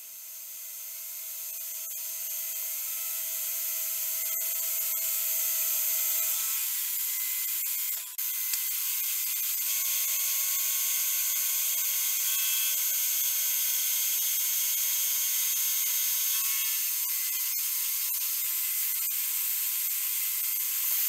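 Milling machine face-milling a steel block: a steady high cutting hiss from the face mill's inserts, with a faint steady whine in parts. The sound builds over the first few seconds and breaks off for a moment about eight seconds in.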